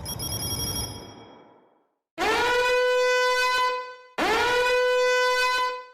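The tail of a build-up swell fades out. Then comes the '999 credit score' siren meme sound effect: two identical horn-like blasts, each swooping up to a steady high note and held about a second and a half.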